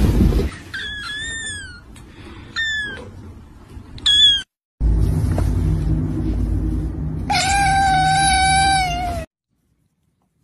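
A kitten gives three short, high-pitched mews. Then a cat lets out one long, lower meow of about two seconds over a low background hum, and the meow cuts off suddenly.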